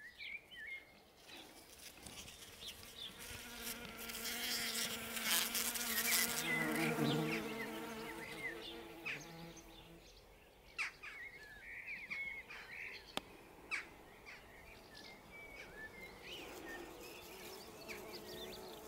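A buzzing insect, most likely a fly, droning with a wavering pitch. It grows loudest in the middle and fades after about ten seconds, with faint short chirps here and there.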